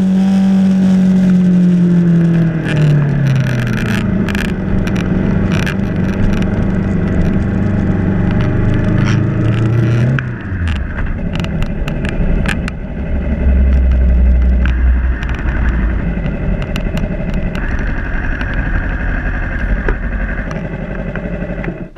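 Yamaha YZF-R3's parallel-twin engine running as the motorcycle rides at town speed, heard through a handlebar-mounted camera with wind noise and sharp clicks. Its pitch falls about two seconds in and drops again to a low rumble about ten seconds in as the bike slows.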